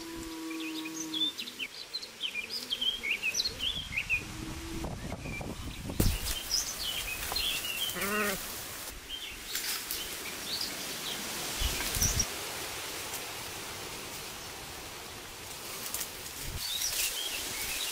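Small birds chirping in woodland over rustling ferns and undergrowth. Livestock bleat twice, a held call at the start and a wavering one about eight seconds in. A few sharp knocks land about six and twelve seconds in.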